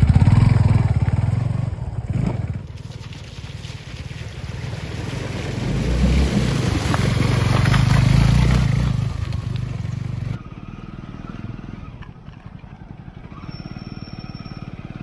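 Motorcycle engine running through a series of edited clips. The sound changes abruptly about three seconds in and again about ten seconds in, and swells louder in the middle stretch before dropping to a quieter run near the end.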